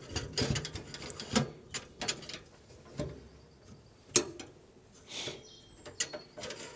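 Scattered clicks, knocks and scrapes of model railway bridge truss sections being handled and slid into one another, with one sharper knock about four seconds in.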